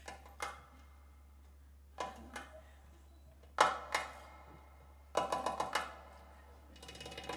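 Darbuka (goblet drum) played by hand in short separate phrases: three pairs of sharp strokes a couple of seconds apart, then a quick run of about six strokes, and a soft fast roll near the end.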